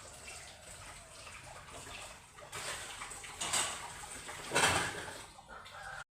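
Water running and splashing, in several louder swells, then stopping dead near the end.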